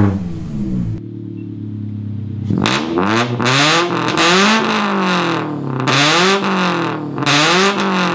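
Toyota 86's flat-four engine, fitted with equal-length headers and a straight 2.5-inch front pipe with no muffler, revs dropping back, a moment of idle, then four throttle blips that each rise and fall. Really raspy and obnoxiously loud with the throttle cracked, because no muffler is fitted yet.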